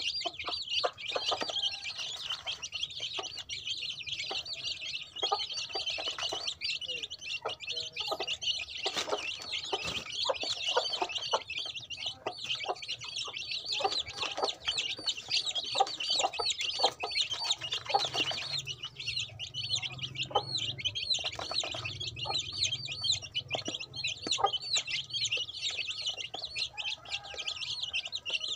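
A brood of chicks peeping continuously, with many short high chirps overlapping. Through it runs a rapid patter of light clicks, their beaks pecking feed in a plastic tray.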